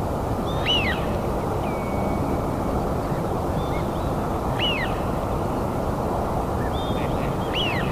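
A bird gives a short arched call three times, a few seconds apart, with a brief thin whistle between the first two. Under it runs a steady low rushing noise.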